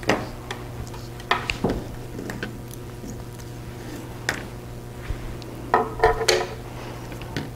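Scattered sharp clicks and light knocks of small electronics being handled on a tabletop: cables and connectors pulled and a small stepper motor lifted away, with a cluster of clicks about six seconds in, over a steady low hum.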